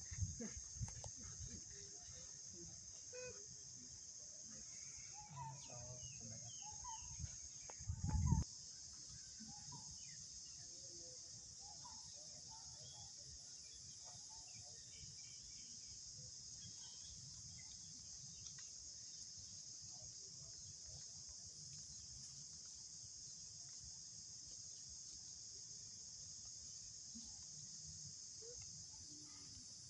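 Steady high-pitched drone of an insect chorus, with faint scattered chirping calls in the first third. A brief low rumble comes about eight seconds in.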